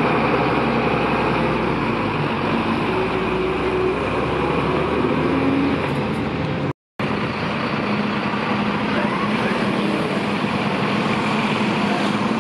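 Diesel engines of Mercedes-Benz fire engines running as the trucks drive off, with street traffic noise around them. The sound cuts out for a moment about seven seconds in.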